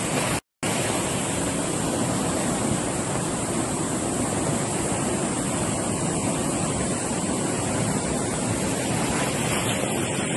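A swollen river in flood, its fast water rushing steadily, with a split-second dropout about half a second in.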